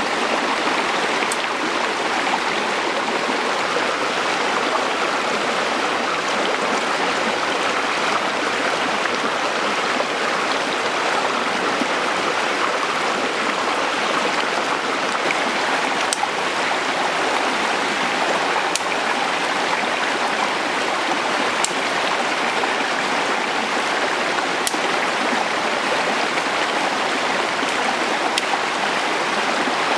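Shallow mountain stream rushing and splashing over rocks, a steady, unbroken noise. A few faint sharp clicks are heard over it now and then.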